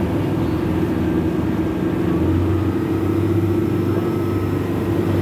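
Old boat's engine running steadily with a low, even drone; the deepest part of the hum grows stronger about two seconds in.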